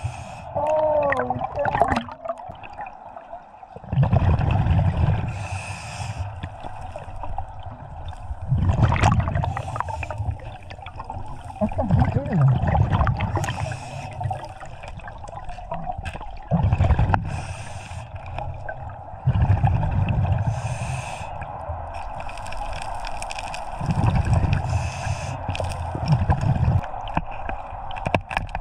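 Scuba diver breathing through a regulator underwater. The exhaled bubbles rumble in bursts about every four seconds, with the hiss of each inhalation between them, over a steady hum.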